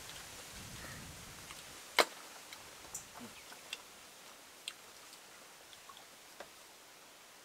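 Scattered small clicks and taps of cooked snail shells being handled and picked at with toothpicks while eating, with one sharp louder click about two seconds in, over a faint steady hiss.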